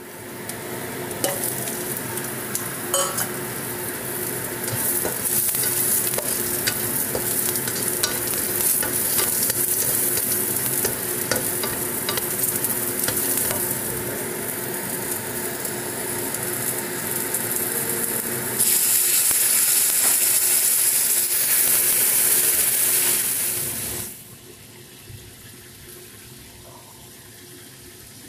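Sliced ginger, garlic, red chili and carrot sizzling in hot oil in a wok, stir-fried with a spatula that scrapes and clicks against the pan. The sizzle grows louder and brighter about 19 seconds in, then drops suddenly to a faint hiss about 24 seconds in.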